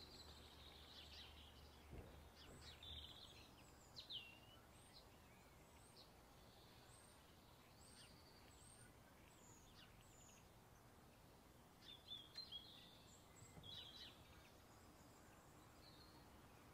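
Near silence, with faint, scattered high-pitched chirps, a cluster of them near the start and another about twelve seconds in.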